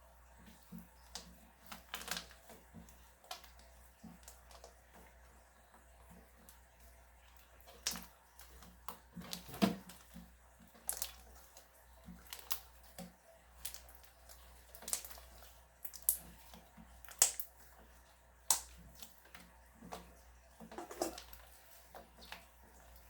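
Slime being squeezed and pulled by hand, giving scattered sharp, wet clicks and pops at irregular intervals.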